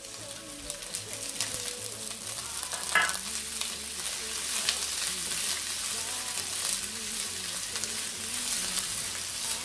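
Sliced bell peppers, onion and carrots sizzling in hot olive oil in a nonstick frying pan, stirred and tossed with a spoon; a sharper clack of the spoon about three seconds in.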